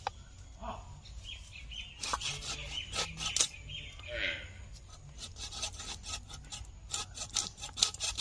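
A blunt boti blade chopping through tough desi rooster meat and bone, heard as sharp knocks in two bursts, about two seconds in and again near the end. Birds chirp in the background.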